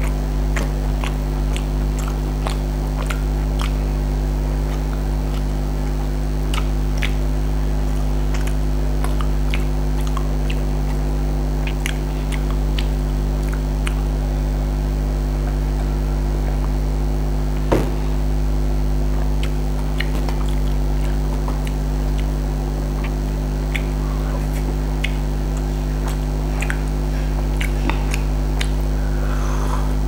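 Steady low hum throughout, with scattered small clicks and smacks of eating by hand close to the microphone: fingers on a paper plate, chewing and sipping. A single sharper knock about eighteen seconds in.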